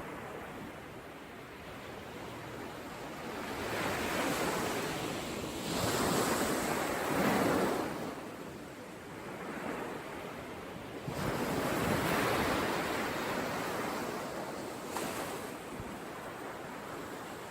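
Ocean surf: waves breaking and washing on the shore, the rush swelling and easing every two to three seconds.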